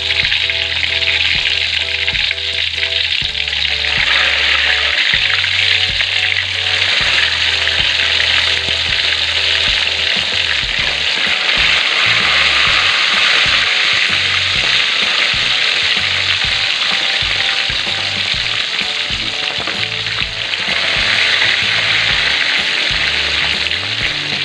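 Pre-braised chicken pieces deep-frying in hot oil in an aluminium wok, with a loud, steady sizzle of bubbling oil.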